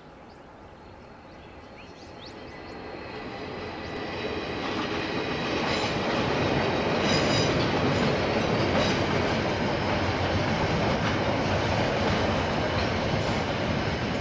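KiwiRail diesel freight train passing: the locomotives grow louder as they approach over the first few seconds, then the wagons roll by with a steady rumble, wheel clicks on the rail joints and a thin high wheel squeal.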